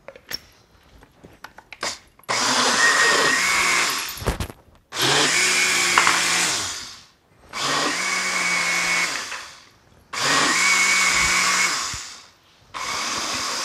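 Countertop blender blending lime gelatin, condensed milk and cream cheese into a thick green cream. It runs in five bursts of about two seconds each, the motor whine rising as each burst starts and falling away as it stops. A few light clicks of handling the blender come before the first burst.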